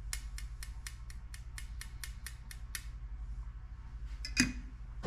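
Quick, even clicking, about four or five a second, that stops about three seconds in. Then one sharp clink as a stir stick strikes the glass cup of plastisol, all over a low steady hum.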